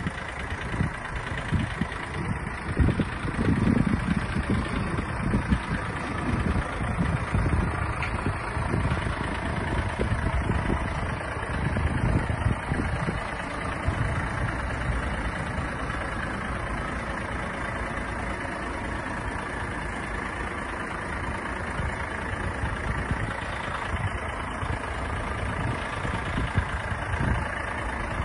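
Volvo FH 460 tractor unit's 13-litre six-cylinder diesel idling steadily, with a few low rumbling swells along the way.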